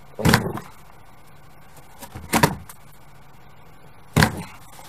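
Three loud thumps on a cardboard pet house, about two seconds apart.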